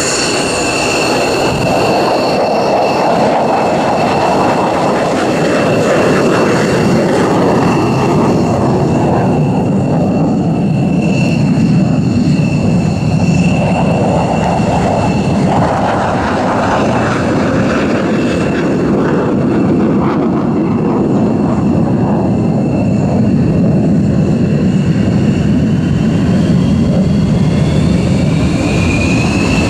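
Jet aircraft engine running steadily: a continuous roar under a high turbine whine, with the whine rising near the end.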